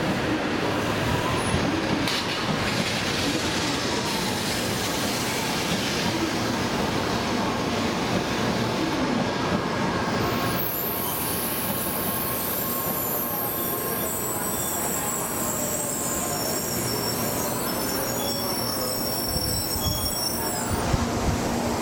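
N700 series Shinkansen trainset running slowly into a station platform, with a steady rumble of wheels on rail. A high-pitched squeal sets in about halfway through as it slows, and stops shortly before the end.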